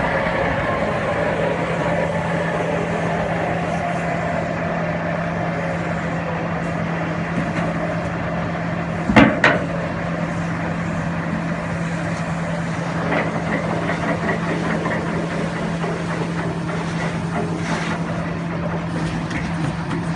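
Excavator-mounted Movax side-grip vibratory pile driver working steel sheet piles, its machinery running with a steady hum. Two sharp knocks sound close together about nine seconds in.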